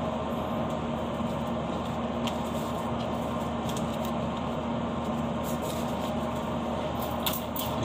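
Steady hum and rush of a ship's galley ventilation, with a few faint handling clicks.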